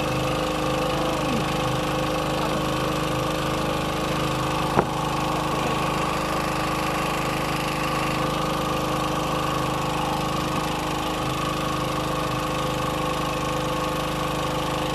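Boat engine running steadily, a constant droning hum with a knocking edge, with one sharp click about five seconds in.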